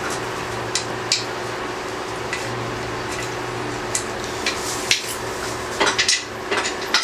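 Scattered light metallic clinks and taps as the outboard's lower unit and its hardware are handled while being fitted to the exhaust leg, a few knocks bunched together near the end, over a steady low hum.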